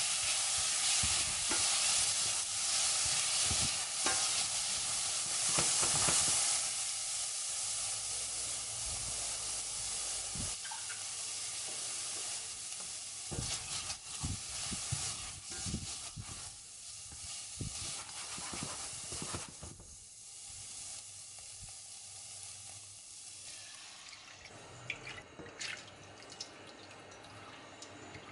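Prawns and squid sizzling in hot oil in a nonstick pan while a silicone spatula stirs and scrapes them. The sizzling is loud at first, fades over time, and dies away a few seconds before the end, leaving a few light clicks.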